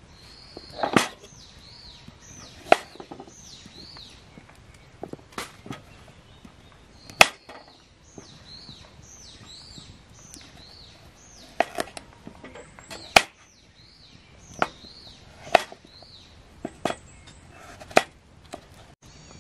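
A knife chopping on a cutting board in single sharp cuts, one every second or two, unevenly spaced. A bird repeats short, high calls behind it.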